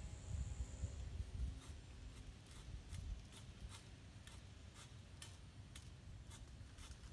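Faint wind buffeting the microphone in uneven gusts, strongest in the first second and a half, with scattered light clicks and rustles.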